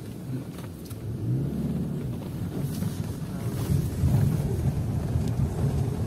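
Car engine and tyre rumble inside the cabin of a moving car, a low steady noise that grows a little louder about four seconds in.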